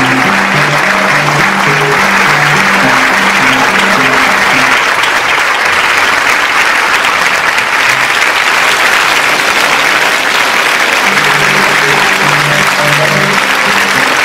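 Audience applauding steadily over background music. A line of short low notes plays under the clapping, drops out about five seconds in and comes back near the end.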